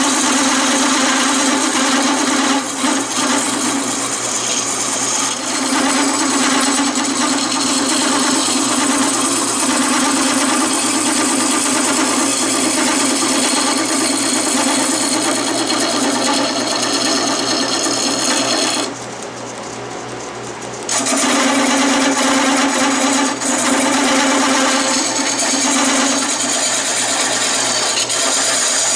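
Wood lathe running while a flat scraper, ground from an old laminate file, cuts a spinning wooden handle, a steady cutting noise over the lathe's hum. About two-thirds through, the cutting stops for roughly two seconds and only the lathe hum is left, then the scraping resumes.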